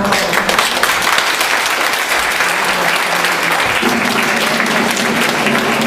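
Audience applauding, a dense steady clapping from a roomful of people.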